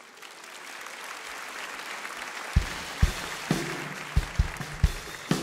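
Large audience applauding, the clapping swelling over the first couple of seconds. From about halfway in, a few deep, irregular thumps sound over it.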